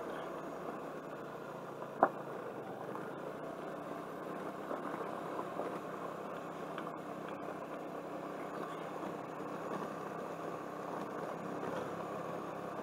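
Suzuki Burgman motor scooter running steadily while riding slowly up a bumpy gravel road, its engine mixed with tyre and road noise. A single sharp knock about two seconds in.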